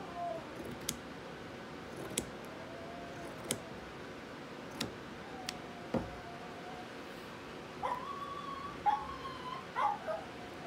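A dog whining in thin, wavering whines, with a few short yips near the end, while pinking shears snip through cotton fabric with sharp clicks, about one every second or so during the first half.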